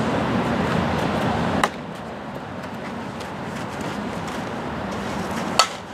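Steady outdoor wind noise with two sharp hits: a crack about a second and a half in, and near the end a ringing metallic ping, as of an aluminum softball bat hitting a ball.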